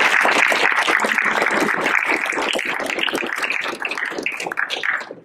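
Audience applauding, many hands clapping, the applause dying away near the end.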